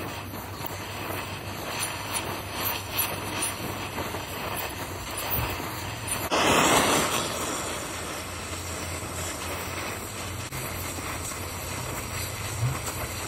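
Oxy-fuel torch flame burning with a steady hiss as it heats a rusted driveshaft yoke held under load in a press, to free the seized stub from the center carrier bearing. The flame swells louder for about a second near the middle.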